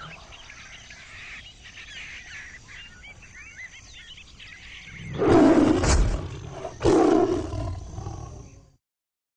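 Faint jungle bird chirps, then two loud big-cat roars about five and seven seconds in, the second cutting off abruptly.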